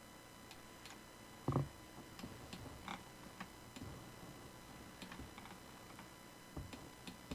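Faint, irregular clicking of a computer mouse and keyboard, with one louder thump about a second and a half in.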